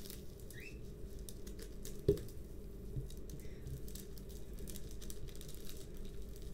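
Hands smoothing and pressing a plastic-covered diamond painting canvas flat on a desk: faint rustles and light taps over a steady low hum, with one sharper knock about two seconds in.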